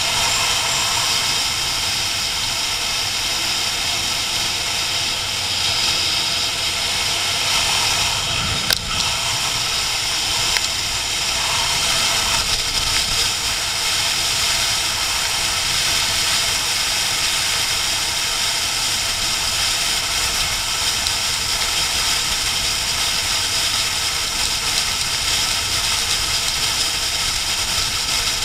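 Steady wind rush over a motorcycle-mounted camera at road speed, with a sportbike's inline-four engine running underneath. One short knock about nine seconds in.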